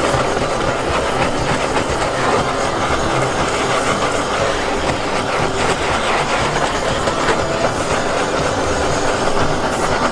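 Handheld butane torch running, its flame giving a steady rushing hiss as it is played over a hotteok on a griddle.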